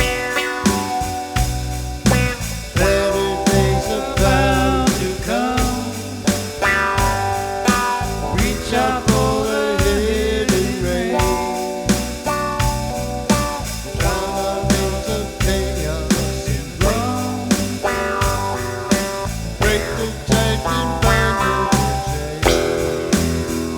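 Small acoustic band playing an instrumental passage: guitars over a steady bass guitar line, with a lead melody of bending, wavering notes on top.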